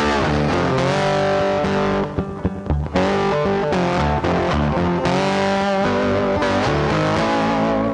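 Background music led by an electric guitar, with bass, playing at a steady level.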